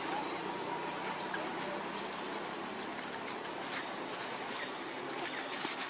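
Steady high-pitched insect drone over an even outdoor hiss, with scattered faint clicks.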